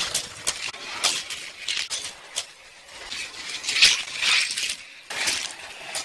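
Toy cars running on orange plastic race track: a string of sharp clicks and rattles, with a louder whirring rush about four seconds in and another just after five seconds.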